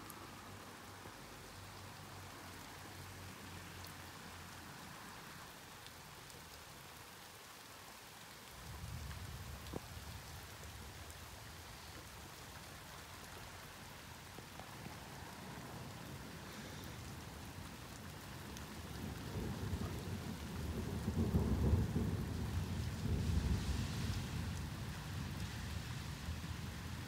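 Thunderstorm: steady rain falls throughout while thunder rumbles low. A rumble starts about a third of the way in, and a longer, louder roll builds through the second half.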